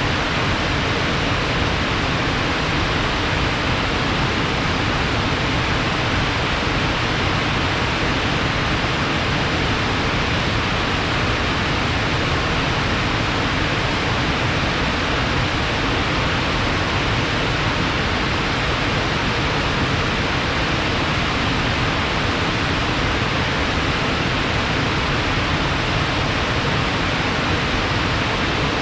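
Fast-flowing water, running high after rain, rushing in a loud, steady, unbroken stream.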